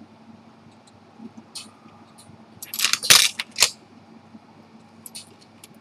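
Small metal watch parts and tools clicking and tapping against each other on the bench, with a quick cluster of sharp clicks around the middle and a few light ticks near the end.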